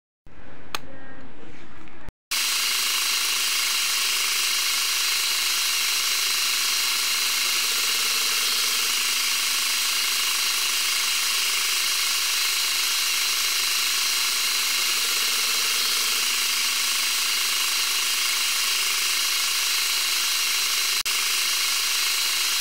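Metal lathe running while a twist drill bores into the end of a spinning bar with cutting fluid: a steady, hiss-heavy machining noise. It begins with a short cut about two seconds in.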